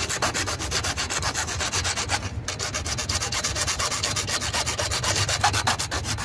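Frameless hacksaw blade, held in the hand, sawing through a 2-inch plastic drain pipe in rapid, even back-and-forth strokes. There is a brief pause about two and a half seconds in.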